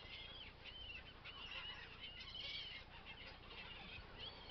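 A flock of birds calling at a feeding spot: many short, high calls overlapping, faint.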